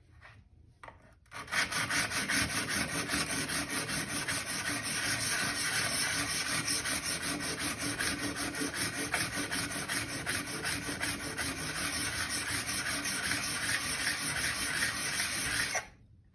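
Steel plane iron lapped flat on 400-grit abrasive: a steady scraping rub in quick, even back-and-forth strokes. It starts about a second and a half in and stops suddenly near the end.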